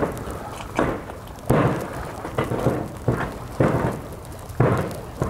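Wind buffeting the camera microphone in uneven gusts, a rumbling noise that swells and drops every half second to a second.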